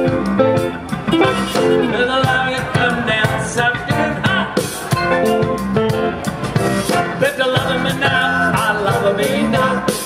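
Live band playing amplified music: electric guitar, electric bass and drum kit.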